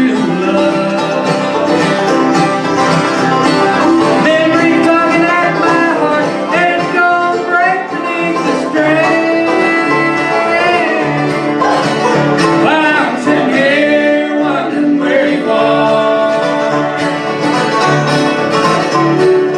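Live bluegrass band playing: banjo, mandolin, acoustic guitars and upright bass, with long held sung notes over the picking.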